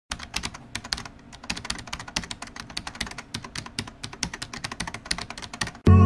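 Computer keyboard typing: a rapid, irregular run of key clicks that stops abruptly as music comes in at the very end.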